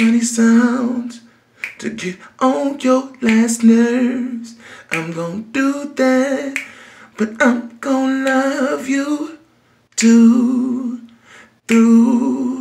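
A single voice singing unaccompanied, in phrases of long held, wavering notes broken by short pauses.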